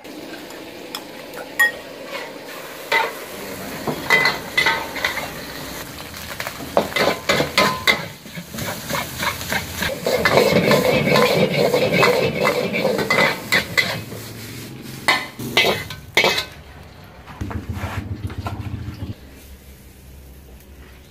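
Metal spatula and ladle clanking and scraping rapidly against a wok while food sizzles and fries over a gas burner, the strokes thinning out near the end.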